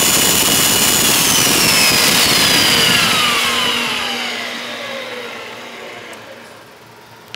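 Milwaukee magnetic drill press motor spinning down after being switched off: its high whine slides down in pitch from about a second in and fades over several seconds, leaving a faint steady low hum, with a small click near the end.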